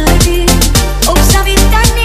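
Gypsy-style dance music: a steady beat of deep kick drums that drop in pitch with each hit, about three a second, over a sustained bass and a melody line.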